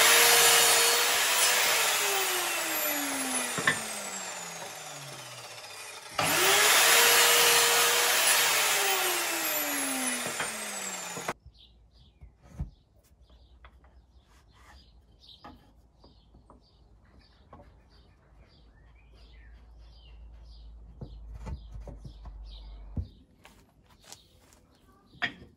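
Sliding mitre saw run twice. Each time the motor is switched on, whines at full speed for a second or two, then winds down over several seconds with a falling whine. There is one sharp knock during the first run-down. From about eleven seconds in, the sound is much quieter: footsteps and small knocks.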